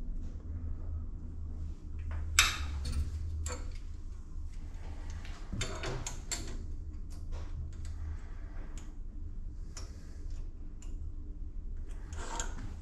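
Scattered light metallic clicks and taps from hands fitting and setting the cutter on a Mira Centronic valve seat cutting machine. Underneath is a steady low electrical hum that weakens about two-thirds of the way through.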